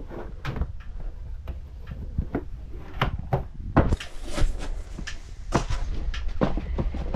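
A run of irregular knocks, scuffs and rustles from someone pulling on boots and shifting about in a small room, with a louder thump a little under four seconds in.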